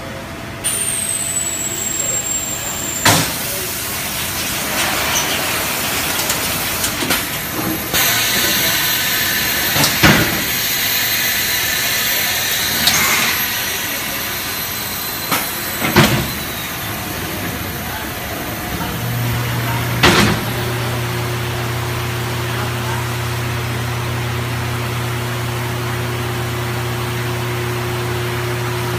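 Industrial machinery running: a steady noisy hiss broken by several sharp clanks, with a steady electrical hum setting in about two-thirds of the way through.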